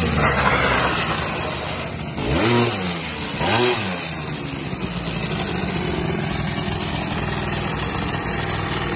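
Small scooter engine revved in two quick blips, each rising and falling in pitch, then settling to a steady idle.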